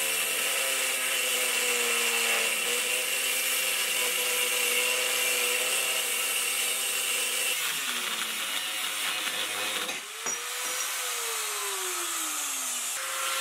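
Angle grinder with a thin cut-off disc cutting through 20 mm thick steel flat bar: a steady motor whine over a harsh grinding hiss, the motor's pitch sagging under load a little past halfway. Near 10 s the cut breaks through and the load drops; the motor picks up briefly, then its pitch falls steadily as it winds down.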